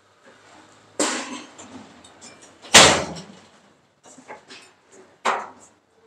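Sharp metal bangs from the steel loading skip of a lift concrete mixer as it is handled and raised up its hoist mast: three impacts, the loudest about three seconds in.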